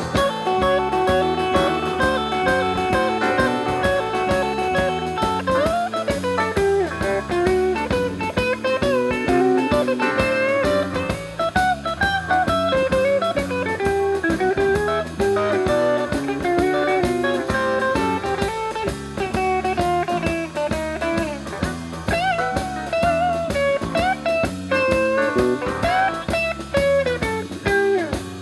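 Live electric blues band playing an instrumental break: an electric guitar lead with bent notes over bass, drum kit and keyboard, with a steady beat.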